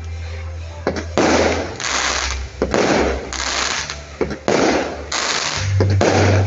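Fireworks display: sharp bangs come roughly every one and a half to two seconds, each followed by about half a second of loud hiss, as shells are launched and burst overhead.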